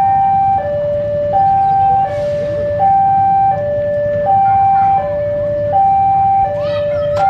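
Level-crossing warning alarm sounding a loud two-tone hi-lo signal, a lower and a higher tone alternating about every 0.7 seconds. It warns that the crossing is closed for a train.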